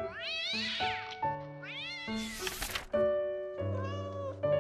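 Kitten meowing: two rising-and-falling cries in the first two seconds, then a short hiss, over soft background music that carries on alone after about three seconds.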